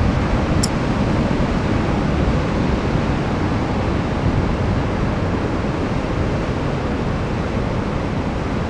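Pacific Ocean surf at a king tide: waves breaking around offshore rocks and foam washing across the beach in a steady rush.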